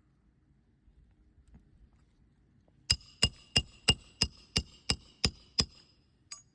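Roofing hammer striking a metal roof snake nine times in a steady run, about three blows a second, each with a short metallic ring, driving a roofing nail back in under a shingle.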